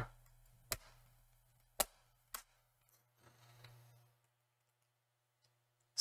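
Hands handling a laptop's plastic bottom case: three short clicks in the first two and a half seconds, then near silence.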